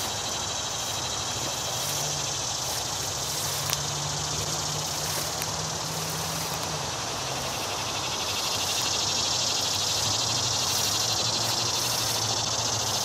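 A steady chorus of summer insects buzzing and trilling high and continuously, with tall grass and brush rustling under footsteps and a faint low drone of distant traffic underneath.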